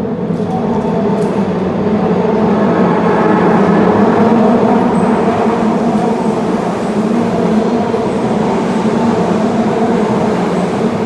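Midosuji Line subway train running along the platform, a loud steady rumble that builds over the first few seconds, then holds.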